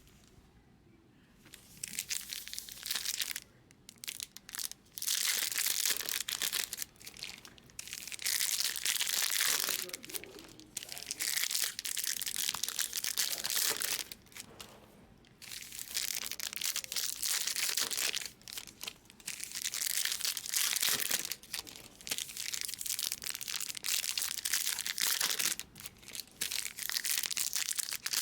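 Foil trading-card pack wrappers crinkling and tearing as packs are opened and handled, in repeated bursts of a few seconds each with short pauses between.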